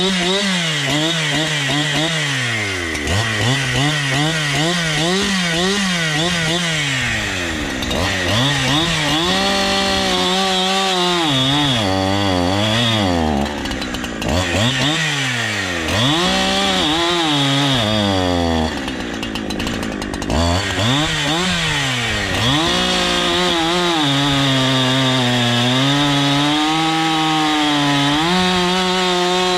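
Two-stroke chainsaw running at high revs and cutting through a maple log about 17 inches across. The engine pitch keeps rising and falling as the throttle is worked and the chain bites, then holds steadier under load in the last few seconds.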